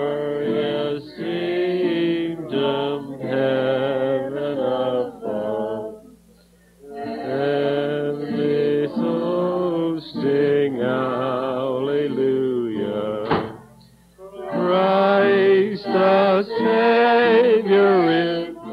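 A woman singing a song solo, in sung phrases with wavering pitch and short breaths about six and fourteen seconds in, on an old 1950 home recording.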